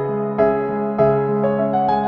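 Background music: a soft electric piano or keyboard melody, notes struck about twice a second.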